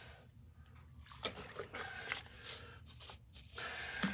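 Irregular splashing and scrubbing in water as a greasy part is washed by hand, in short uneven strokes.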